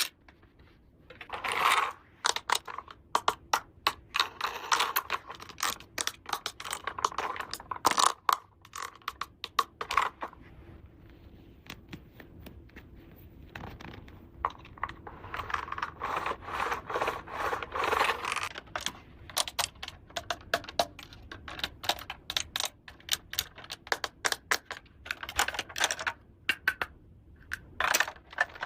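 Small plastic toy pieces being handled: many short, irregular clicks and taps as parts are set down and snapped together, with stretches of scraping and rustling in between.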